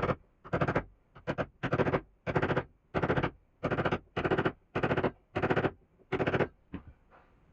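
Hand tool cutting into wood in steady, rhythmic rasping strokes, about one and a half a second, stopping shortly before the end.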